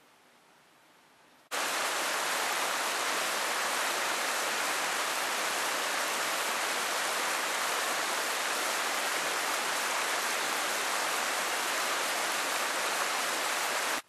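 Shallow river running and babbling, a steady rush of water that cuts in abruptly about a second and a half in, after near silence.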